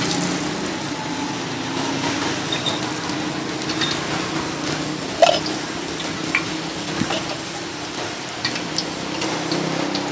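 Charcoal grill sizzling steadily, with scattered small crackles and clicks, as chicken feet and bowls of beaten egg cook on the wire rack over the coals. A low steady hum runs underneath.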